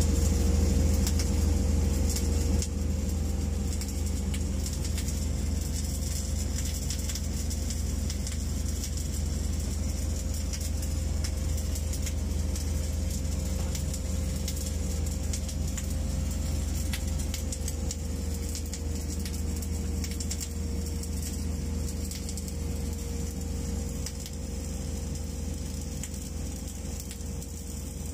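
Mechanized orbital MIG welding carriage running a weld around a steel pipe: faint crackle of the welding arc over a steady low machine hum, which is the loudest sound.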